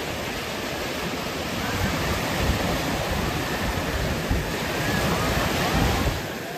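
Small sea waves breaking and washing up the sand at the shoreline, swelling louder near the end as a wave rushes in, then easing.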